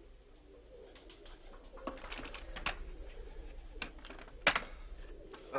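Pigeons cooing, with a scatter of sharp knocks and clicks, the loudest about four and a half seconds in.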